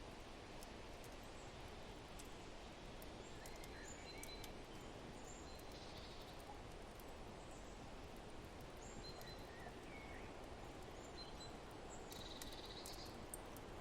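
Steady rushing wind ambience with scattered short bird chirps and a brief trill about twelve seconds in, over faint sharp clicks.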